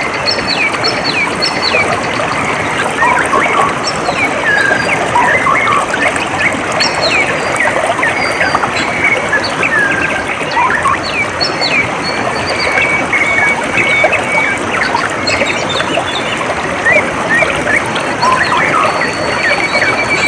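Steady trickling, flowing water with many small birds chirping and whistling over it throughout, including a fast trilling call about midway.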